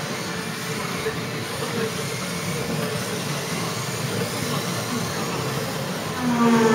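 Kyosho Mini-Z electric RC cars running laps: a steady hiss of small motors and tyres, with faint rising and falling motor whines as the cars speed up and slow down.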